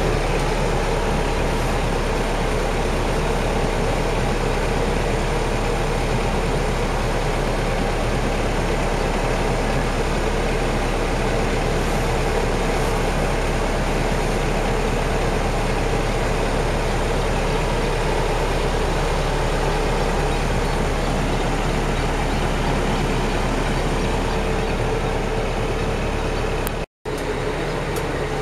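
The engine of a 1981-built motor ferry running steadily under way, heard from on board, with a steady low hum and drone. The sound cuts out for an instant near the end.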